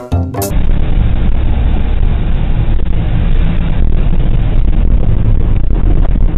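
Steady, loud low rumble of a vehicle on the road, as picked up by a low-quality camera microphone; a snatch of music cuts off about half a second in.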